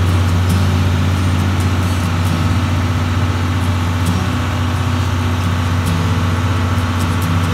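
Standing 12-series passenger train giving off a steady, deep, engine-like hum from its on-board equipment.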